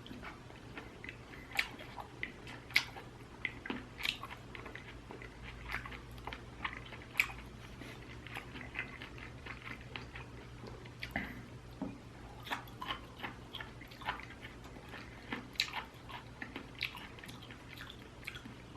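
A person chewing and eating close to the microphone: a scatter of short wet clicks and smacks over a faint steady hum.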